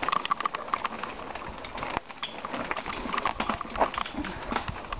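Mountain bike riding downhill over a rough dirt trail: a steady run of irregular rattles, clatters and knocks from the bike and its tyres over stones, roots and twigs.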